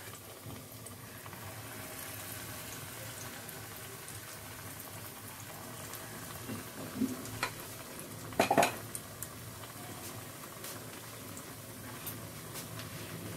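Malpua batter sizzling steadily as it deep-fries in hot oil in a small kadai. A metal spoon clinks against the pan a few times a little past the middle, loudest in a quick cluster.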